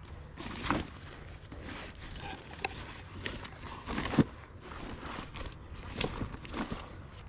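Slow, uneven footsteps crunching on a dirt trail, a step every second or two.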